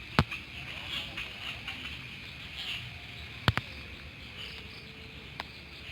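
Night insects chirping steadily in a high, shimmering chorus, with two sharp knocks, one just after the start and one about three and a half seconds in.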